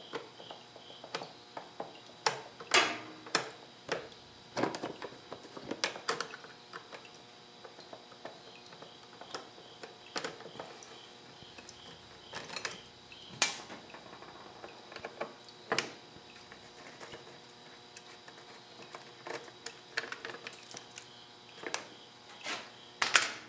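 Irregular clicks and light knocks of hand work on a motorcycle: Phillips screws being taken out and a black plastic cover panel pulled off. A few louder knocks stand out, with a cluster near the end.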